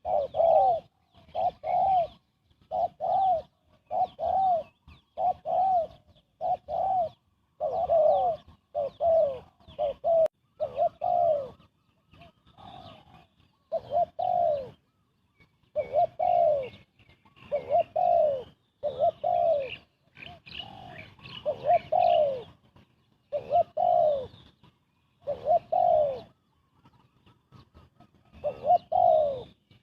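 Spotted dove cooing again and again in quick, closely spaced phrases: groups of two or three low, arched coos about every second or so. Fainter chirps of small birds sound higher up between the coos.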